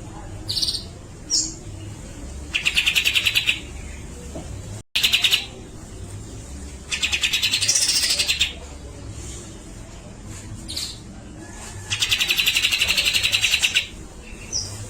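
Cucak jenggot (grey-cheeked bulbul) singing: harsh, rapid rattling chatter in bursts of about a second and a half, repeated every few seconds, with short clear whistled notes between the bursts.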